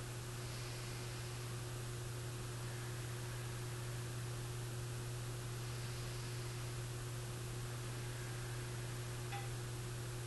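Steady low electrical hum with an even hiss behind it, unchanging throughout, with a faint click near the end.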